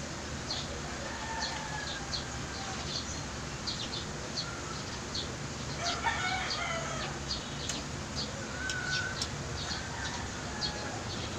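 A rooster crows once, about six seconds in, over a steady low background noise and scattered small clicks.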